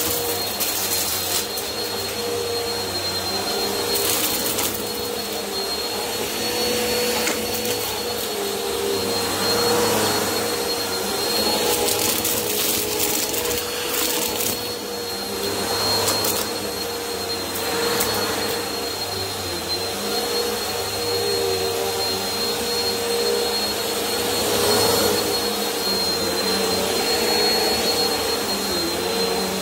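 Bissell upright vacuum cleaner running on carpet, a steady motor hum with a high whine, swelling in loudness every two to three seconds as it is pushed back and forth.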